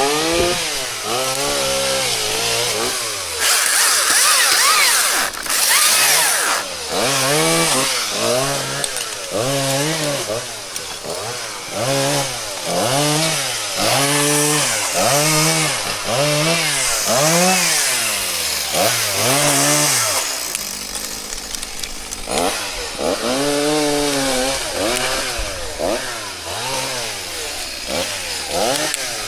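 Chainsaw engine revving up and down in repeated throttle bursts, about one a second, with a harsher hiss about four seconds in and a brief easing off around two-thirds of the way through.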